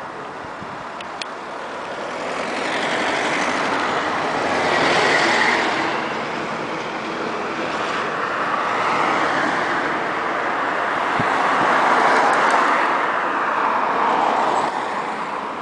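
Road traffic on a busy town street: cars passing in two long swells of tyre and engine noise, the loudest around five seconds in and again around twelve seconds.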